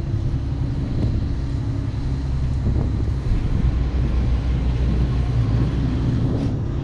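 Yacht's diesel engines running at low speed with a steady low hum, with wind buffeting the microphone.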